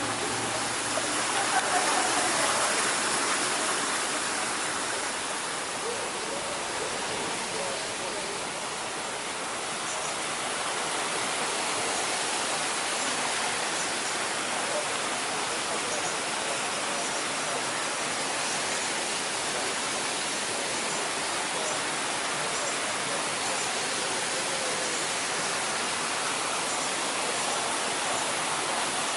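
Steady rushing of falling water, an even, unbroken hiss from a waterfall.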